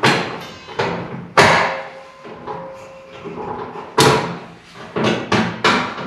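Sharp metal knocks and clanks as a clamp is fitted to a classic Mini's loose steel front wing to hold it in place, several in quick succession near the start and again in the last two seconds, with a quieter stretch between.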